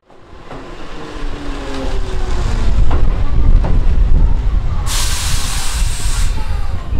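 Keihan 2200 series electric train running along the platform: a heavy rumble swells up with faint falling tones as it slows. About five seconds in comes a loud hiss of released air lasting over a second, then cutting off sharply.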